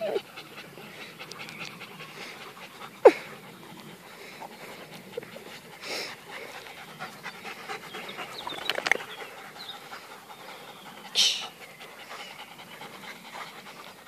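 Beauceron dogs panting hard during rough play, with one sharp cry that slides steeply down in pitch about three seconds in and a short breathy rush of noise near eleven seconds.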